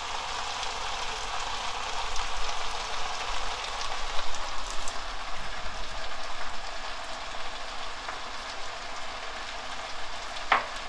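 Seasoned bracken fern sizzling in two frying pans as the juices it releases bubble off: a steady frying hiss with scattered crackles.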